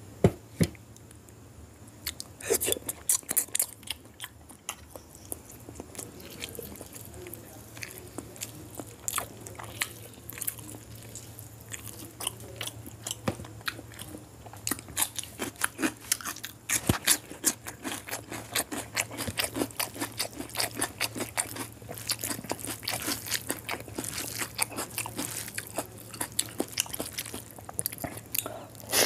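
Close-miked hand-eating of curried whole chicken and boiled quail eggs: wet chewing and lip smacking with many irregular sharp clicks, growing denser in the second half, over a faint steady low hum.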